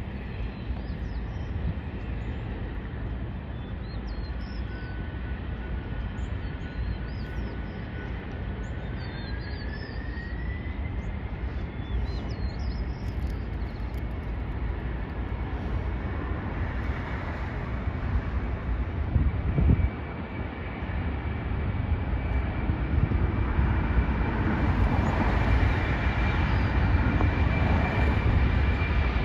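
Boeing 767-300 jet engines running over a steady low rumble, with a thin whine that rises in pitch about ten seconds in and then holds. The jet noise grows louder and fuller over the last several seconds as the airliner departs.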